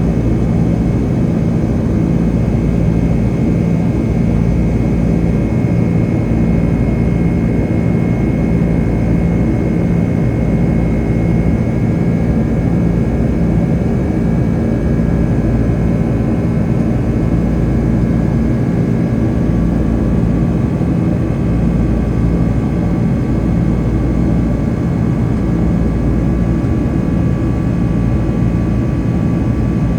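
Cabin sound of a Boeing 767-300ER's twin jet engines running, a steady, loud rumble with a whine that drifts slowly in pitch, heard inside the cabin during takeoff and climb.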